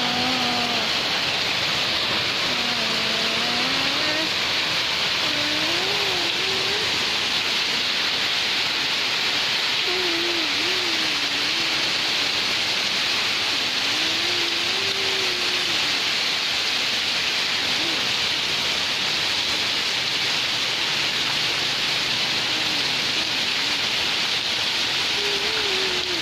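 Heavy rain pouring steadily onto a waterlogged yard and puddles, a constant even hiss and splash.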